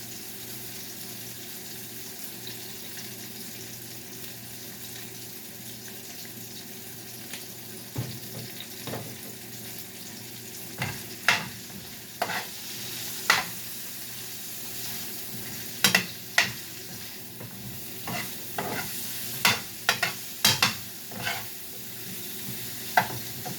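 Broccoli sizzling steadily in hot olive oil in a frying pan. From about eight seconds in, a utensil clinks and scrapes against the pan in a run of sharp, irregular knocks as the broccoli is stirred.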